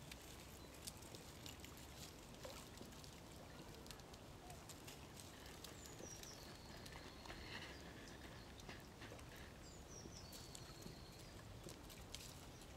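Faint crackling and clicking of thin dry twigs handled in the hands, with a couple of faint bird chirps.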